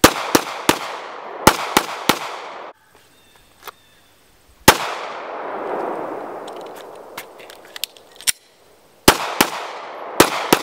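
Glock 43 9mm subcompact pistol firing: six quick shots at the start, two single shots a few seconds apart in the middle, then four more in quick succession near the end, each crack followed by an echoing tail.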